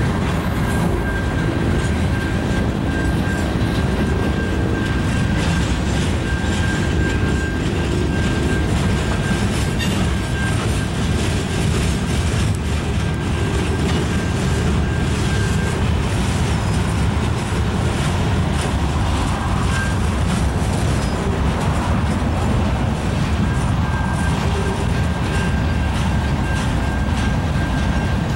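Freight cars of a long train rolling past, wheels rumbling and clacking over the rail joints in a steady, unbroken stream. A thin, steady high tone comes and goes over the rumble.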